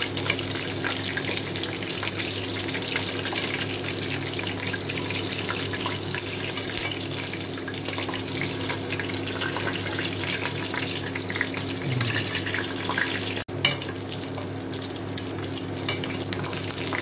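Chicken frying in hot oil in a stainless steel pot: a steady, dense sizzle full of fine crackles as the oil is spooned over the chicken, over a steady low hum. The sound cuts out for an instant about three-quarters of the way through.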